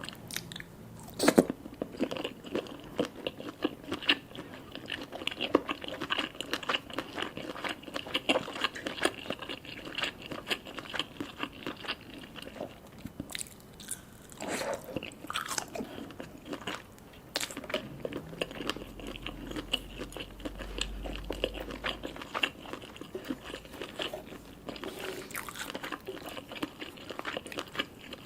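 Close-up eating sounds: chewing and biting through ramen noodles, fish balls and mini sausages, a dense run of short crunchy clicks and smacks.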